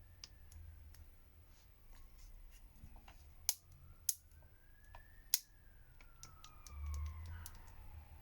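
Sharp clicks of small plastic phone parts being pressed and snapped together, three louder clicks in the middle, as the frame goes on and the side buttons are tried. A faint siren rises and falls in the background.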